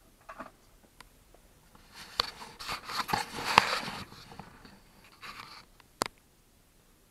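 Handling noise: a few light clicks as the soldering iron is docked in its stand, then rustling and scraping with scattered clicks as a cork work board carrying a solder spool and small parts is picked up and moved. A sharp tap comes about six seconds in.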